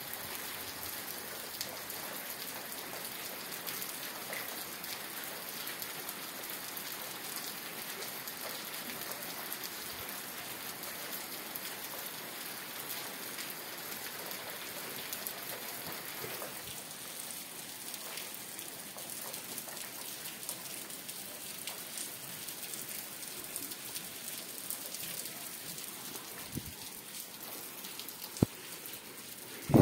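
Steady rain falling, an even hiss of drops on surfaces, with two sharp taps near the end.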